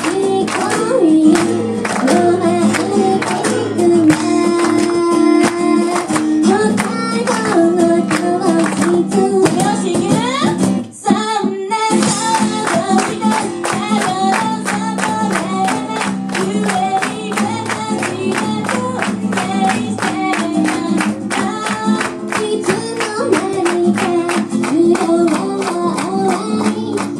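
Live acoustic song: female voices singing over acoustic guitar, with a brief break in the music about eleven seconds in.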